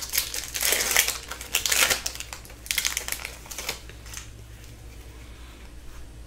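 Foil wrapper of an Upper Deck hockey card pack being torn open and crinkled in the hands, with irregular crackly rustles over the first four seconds that then die down to faint handling.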